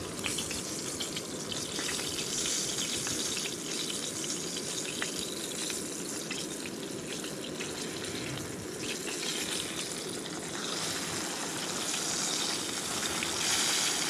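Breaded fish fillets frying in oil in a cast-iron skillet: a steady sizzle with fine crackles.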